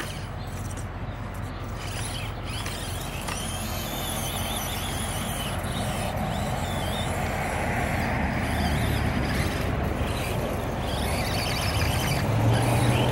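Small electric motor and gear drive of a radio-controlled rock crawler running as it works over loose stones: a steady whir with a faint whine that slowly grows louder. A single sharp click at the very start.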